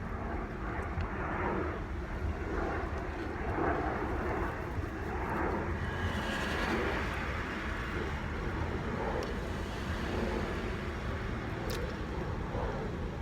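Steady low rumble of passing vehicle noise, swelling for a few seconds about six seconds in.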